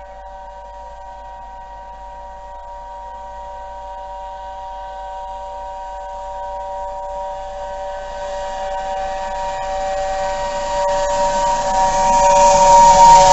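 Steam whistle of the Peppercorn A1 Pacific 60163 Tornado sounding one unbroken chord, stuck open, growing steadily louder as the locomotive approaches. Near the end the pitch drops slightly as it draws level, and the hiss and rumble of the passing engine and train rise beneath the whistle.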